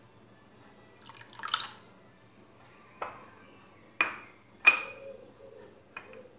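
Green peas poured from a ceramic bowl into an empty stainless steel pot, a brief rattling patter, followed by four sharp knocks of crockery and steel, the third the loudest.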